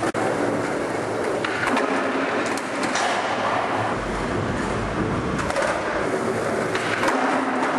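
Skateboard wheels rolling steadily over pavement, with a few sharp clicks and knocks from the board and a low rumble about halfway through.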